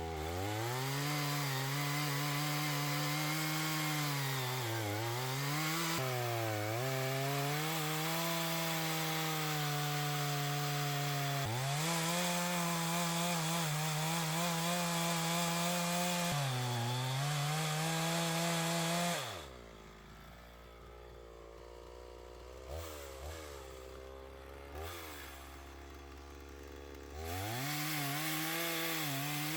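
Chainsaw running at high revs and cutting into wood, its pitch dipping and recovering again and again as the chain loads up in the cut. About 19 seconds in it drops to a quieter idle with a few short blips of throttle, then revs back up near the end.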